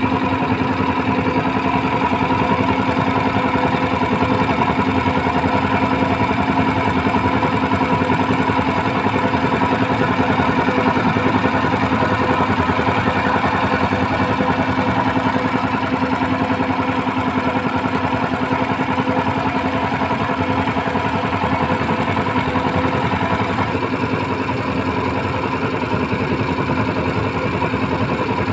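Small fishing boat's motor running at a steady speed, pushing the boat along with an even, unchanging note.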